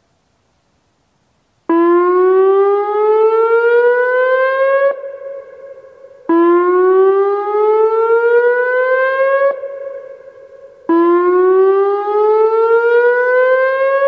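Whelen WPS-2903 electronic dam-failure siren sounding its whoop test signal. It starts about two seconds in: three rising whoops, each climbing for about three seconds, then cutting off sharply with an echo trailing after it.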